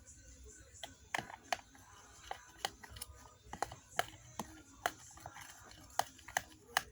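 Spoon stirring a thick glue mixture in a bowl, clicking and knocking against the bowl in irregular sharp taps, two or three a second.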